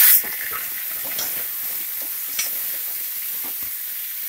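Wet, freshly washed raw chicken pieces sizzling in hot oil with fried onions in an aluminium pressure cooker pot, stirred with a steel ladle. A loud hiss from the chicken going in drops right at the start to a steady frying sizzle, with a few light clinks of the ladle against the pot.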